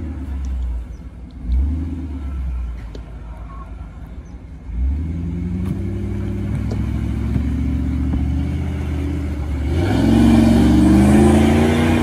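Jeep Grand Cherokee engine working through deep mud at low speed, its revs rising about five seconds in and climbing hard near the end, with a rush of mud and wheel noise as it pushes through.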